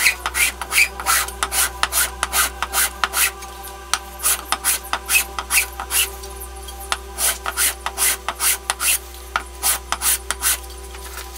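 Edge of a 1/4-inch aluminium plate rubbed back and forth by hand on sandpaper taped to a flat stone slab: quick rasping strokes, several a second, with a couple of short pauses, stopping shortly before the end. Soft background music underneath.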